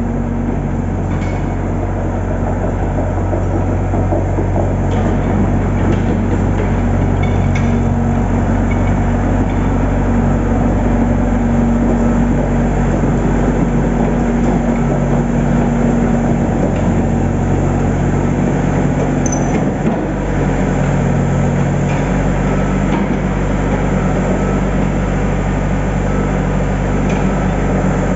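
Yanmar ViO75 mini excavator's four-cylinder diesel engine running steadily as the machine tracks forward, with a few faint clicks; its note shifts slightly about twenty seconds in.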